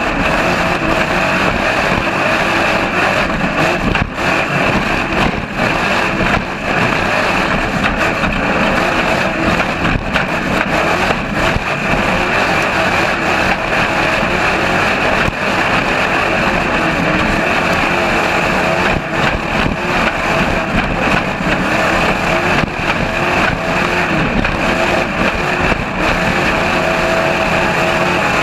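Trophy truck running at high speed over desert dirt, heard from beneath the rear axle: a loud, steady rush of engine and driveline noise mixed with wind and dirt spraying off the tyres.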